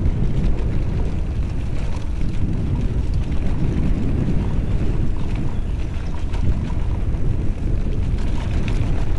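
Steady wind rumble on the bike-mounted camera's microphone, mixed with tyre roll and the rattle of a Calibre Bossnut mountain bike running at about 17 mph over a dirt track.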